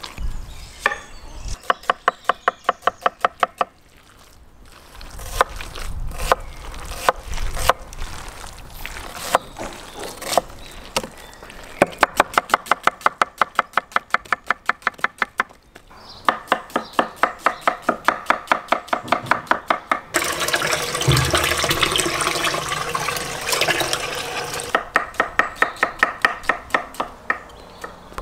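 Kitchen knife chopping onion on a wooden cutting board in quick runs of about seven or eight strokes a second, with pauses between the runs. A few seconds of steady hissing noise sit between two runs about two-thirds of the way through.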